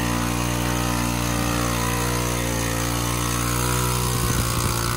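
ATV engine running at a steady pitch as the four-wheeler churns through deep mud, with a rougher, choppier stretch of sloshing near the end.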